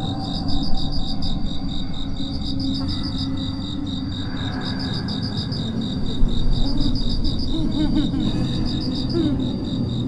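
Crickets chirping in quick, evenly repeated pulses, one chorus steady and another in short trains every second or two, over a steady low noise.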